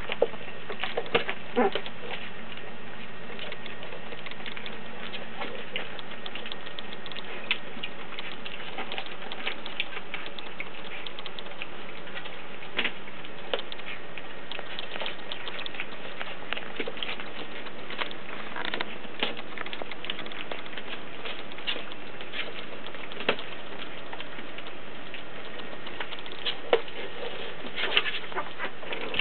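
Border Collie puppies eating crumbly puppy food from a stainless steel bowl: irregular small clicks and taps of food and paws against the metal, over a steady hiss.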